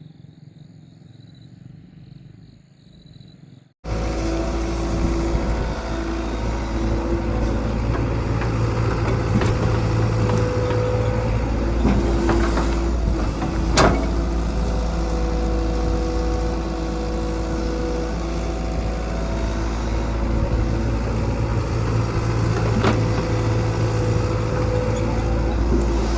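Excavator's diesel engine running under load, a steady low rumble whose tones rise and fall as it works, with a sharp knock about ten seconds after it comes in. It starts abruptly about four seconds in, after a quieter stretch of faint steady tones.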